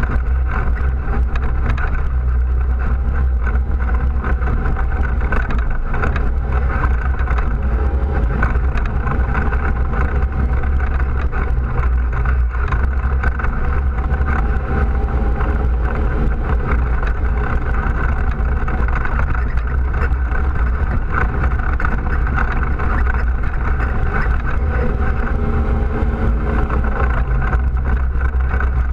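ATV engine running steadily while riding a rough dirt trail, heard from a camera mounted on the quad, with a heavy low rumble and small rises and falls in engine pitch.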